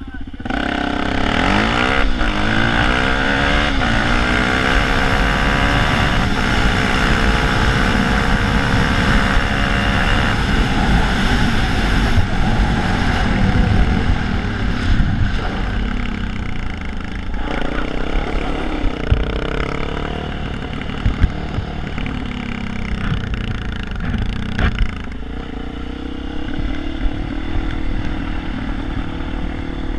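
Sport quad bike engine pulling away hard just after the start, revs climbing, heard from the rider's own machine. About fifteen seconds in it eases off to lower, steadier running.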